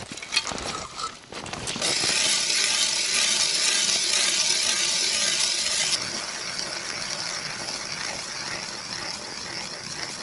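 A few footsteps in deep snow, then a hand-cranked ice auger boring into river ice: a steady grinding scrape, somewhat quieter from about six seconds in.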